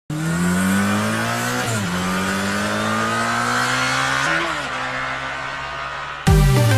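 Motorcycle engine accelerating hard through the gears. Its pitch climbs, drops at a gear change under two seconds in, climbs again, then drops at a second shift before fading. Music with a heavy bass beat cuts in suddenly near the end.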